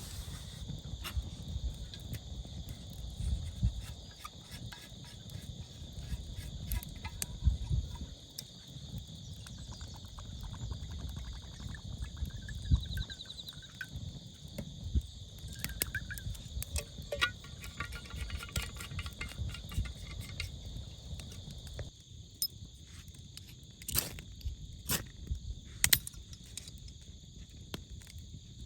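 Steady chorus of crickets and other night insects, with scattered sharp clicks and pops throughout, a few louder ones near the end, and low thuds in the first third.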